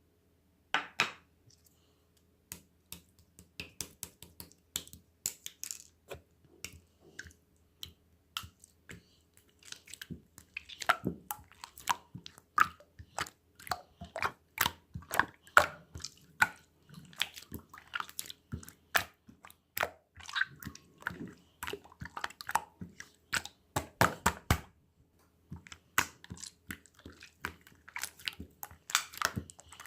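Many irregular, close clicks and soft taps, sparse at first and coming much faster from about ten seconds in.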